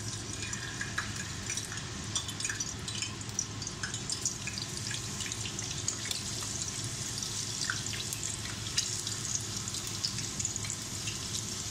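Thin raw potato slices sizzling in hot oil in a frying pan, a steady hiss with scattered crackles, as more slices are dropped in.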